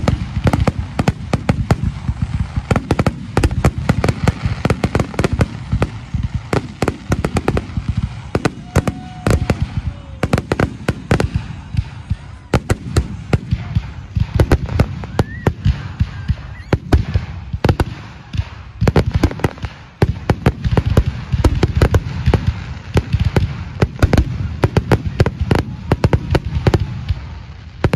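Fireworks display: a dense, continuous run of bangs and crackles, several per second, over a steady low rumble.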